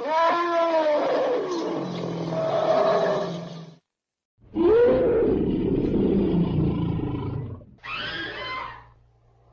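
Vintage sound-effect recordings of elephants trumpeting and roaring: three calls, two long ones of about four and three seconds with pitch sweeping up and then falling away, then a short one near the end.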